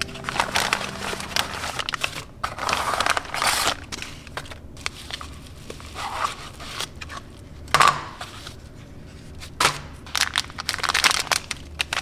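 Paper mailer envelopes and plastic packaging being torn open and crinkled by hand, in irregular bursts of rustling with a few sharp crackles.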